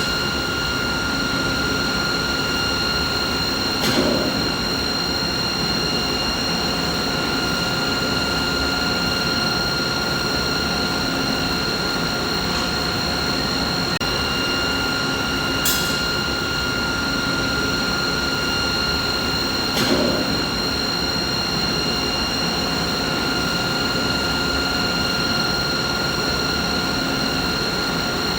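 Steady machinery noise used as a masking sound: a constant rushing hum with a high, even whine and its overtones over it, never changing in level. Three brief clicks are spread through it.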